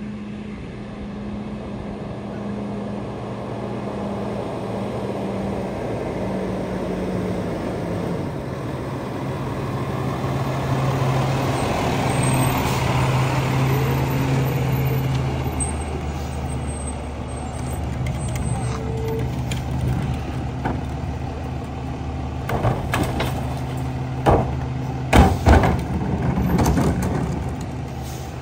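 Freightliner M2 garbage truck's engine running as it drives up and passes close by, loudest about halfway through. Near the end, a run of sharp clanks and bangs as recycling is thrown into the McNeilus rear loader's hopper.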